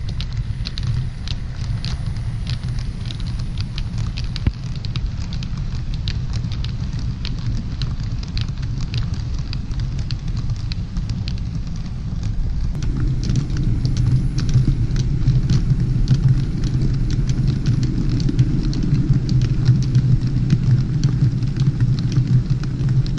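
Model railway train running on the track: a steady rumble with many quick clicks from the wheels on the rails, the low hum growing louder about 13 seconds in.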